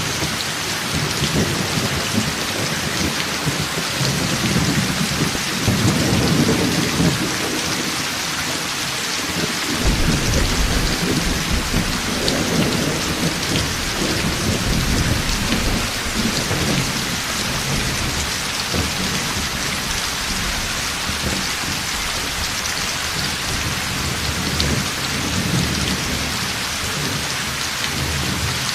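Heavy rain falling steadily, with thunder rumbling and rolling underneath. The rumbles swell most about five to seven seconds in, again from about ten seconds in, and once more near the end.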